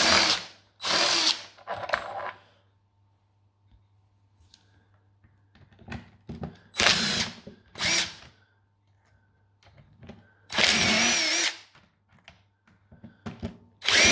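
Cordless DeWalt power driver spinning out screws from a framing nailer's housing in short runs with a motor whine: three quick runs at the start, two more about halfway, a longer one near eleven seconds and another at the end, with small clicks of handling between them.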